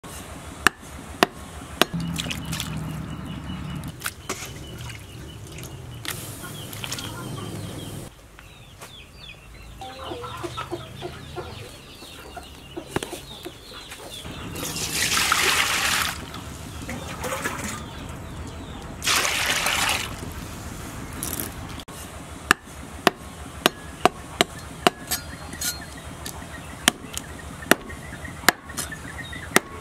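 A heavy cleaver chopping dried fish on a wooden chopping board: a string of sharp knocks, at the start and again through the last several seconds, with chickens clucking in the background. Midway there are two louder bursts of rushing noise.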